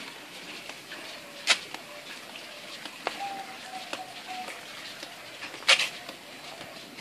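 Footsteps walking on a concrete path, with two sharp, louder clicks, about a second and a half in and again near the end, and a faint steady tone for about a second in the middle.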